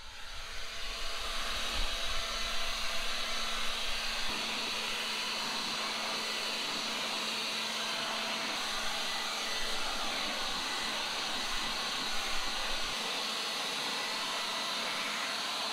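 Leaf blower running steadily, blowing water off freshly washed car wheels to dry them: a continuous rush of air over a low motor hum, with extra gusty rumble in the first four seconds.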